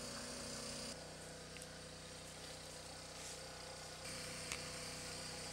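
Faint steady background hum, with a few faint ticks.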